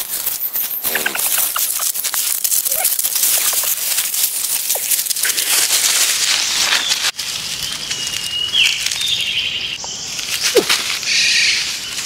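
Rustling and crunching of dry leaf litter underfoot, a dense run of crackles over a steady high hiss. The sound cuts out briefly about seven seconds in. After that come a short whistled note and a few faint chirps.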